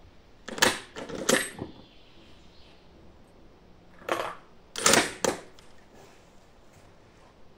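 Sharp metal clicks and clacks from handling a Yugoslav M48A Mauser bolt-action rifle and its 8x57 cartridges. There is a burst of three or four clicks in the first second and a half, then another cluster about four to five seconds in as a cartridge is taken from the box and loaded into the action.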